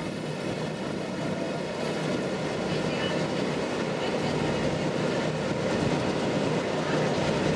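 Excursion boat's engine running steadily under way, a continuous mechanical drone with faint steady tones that slowly grows louder.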